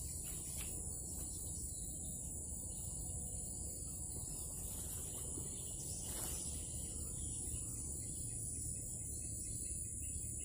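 Steady high-pitched chorus of insects, a continuous even buzz, over a low background rumble.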